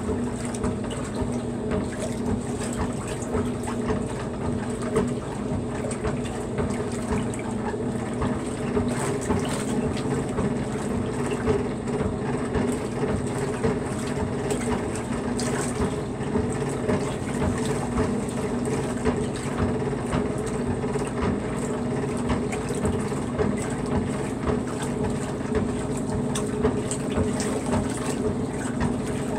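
Maytag wringer washer agitating a load in soapy water: steady churning and sloshing over a low, even mechanical hum.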